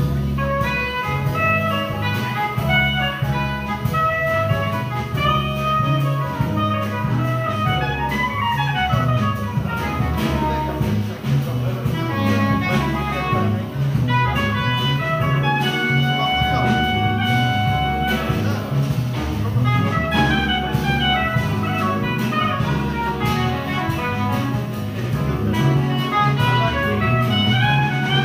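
A small jazz band with a horn section playing live over piano, bass and drums: many quick melodic notes over a steady bass line, without a break.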